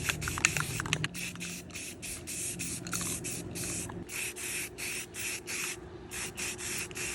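Short, regular bursts of hissing spray, about two a second, over a faint steady hum.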